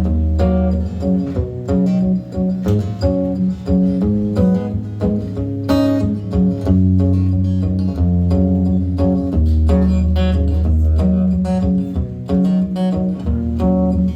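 Live acoustic guitar intro to a country song, strummed and picked chords over a bass line, played before the vocals come in.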